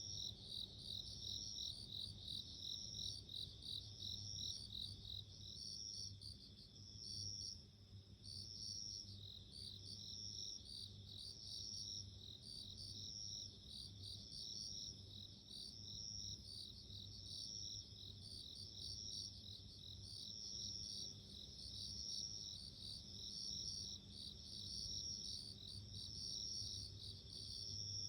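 Japanese bell crickets (suzumushi) chirping: high ringing trills repeated over and over, about every second or so.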